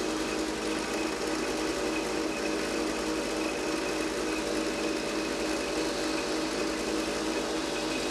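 Drill press motor running steadily while a brad-point bit drills holes into a wooden engine block, down to the top of the brass cylinder tubes.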